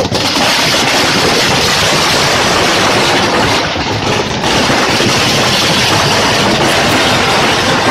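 A burning Ravana effigy. The firecrackers packed inside it crackle and pop in a rapid, unbroken string over the roar of the blaze, loud and steady throughout.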